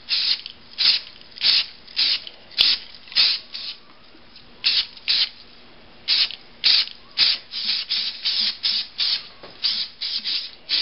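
Aerosol can of spray primer hissing in short bursts, about two a second, as a coat of primer is laid on in quick passes, with a couple of brief pauses.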